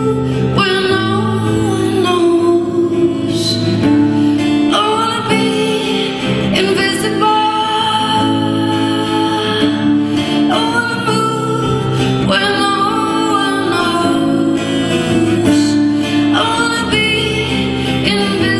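A woman singing to her own strummed acoustic guitar.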